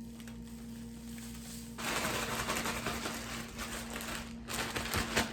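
Dense, fine rustling of grapes being tossed in dry Jello powder, lasting about two and a half seconds from about two seconds in, with a few sharp clicks near the end. A steady low hum runs underneath.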